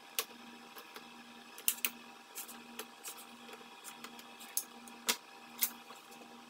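A pen scratching short marks on masking tape over a plastic bumper cover while a tape measure is held against it: a scattering of brief scratchy strokes, taps and clicks, uneven in timing.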